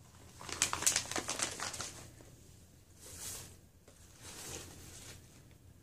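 Plastic snack pouch crinkling in the hands, a crackly run of crinkles from about half a second in to two seconds in. Two shorter rustles follow as hands dig through the crinkle-cut paper filler in a cardboard box.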